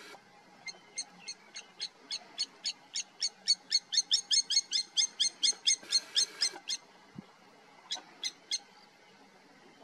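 A bird calling: a long run of short, high, repeated whistled notes that speeds up from about three to about five a second and grows louder, then fades and stops. After a short pause come three more notes.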